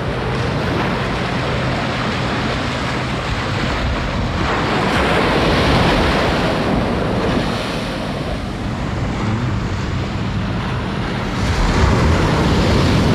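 Strong surf: waves breaking, the wash swelling about five seconds in and again near the end, with wind rumbling on the microphone.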